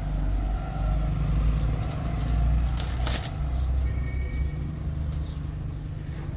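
Steady low rumble, with a brief rustle of dry, bare-root sapling branches being handled about three seconds in.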